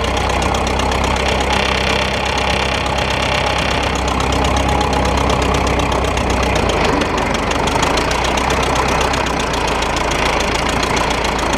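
1927 Model T Ford four-cylinder flathead engine of a homemade tractor running steadily with a rapid, even beat while the tractor pulls a walking plow through the soil.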